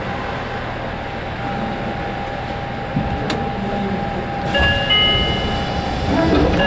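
Subway train slowing to a stop at a platform: a steady running rumble with a thin whine that fades out, and a sharp click about three seconds in. From about four and a half seconds, an electronic chime of several high notes sounds twice.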